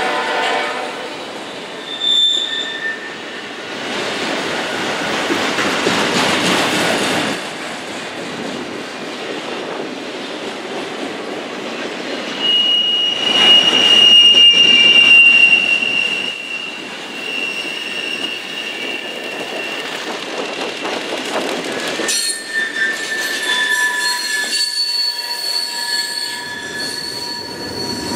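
Norfolk Southern freight cars rolling past, with a steady rattle and rumble of wheels on rail. High-pitched wheel squeal rises about twelve seconds in and holds for several seconds as the loudest sound. More squealing tones return near the end.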